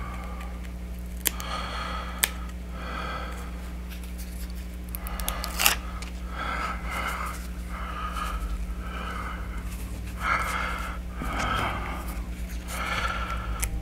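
Paper backing being peeled off small prefused fabric applique pieces and handled by the fingers: a run of short papery rustles with a few sharp ticks, over a steady low hum.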